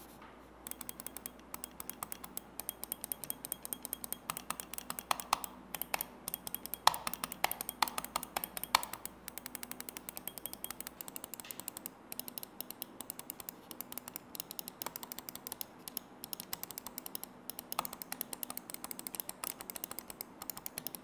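Rapid, irregular clicking of mechanical switches on a gaming peripheral, several clicks a second, as in a typing or click sound test.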